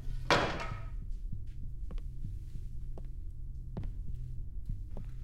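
A low, steady throbbing hum, with a brief hiss about a third of a second in and a few faint ticks scattered through it.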